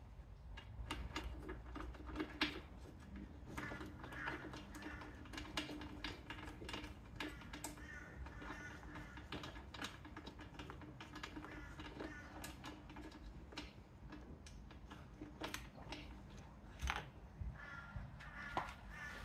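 Irregular light clicks and knocks of hand tools and fittings being worked under a motorcycle's plastic rear fender, with a few short runs of rapid ticking.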